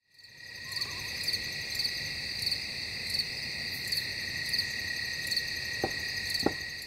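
Night chorus of crickets: a steady high chirring, swelling slightly about every two-thirds of a second. Two soft knocks come near the end.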